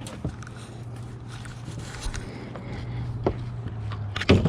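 Fishing gear being handled in a boat: scattered light knocks and scrapes over a steady low hum, with one loud knock near the end.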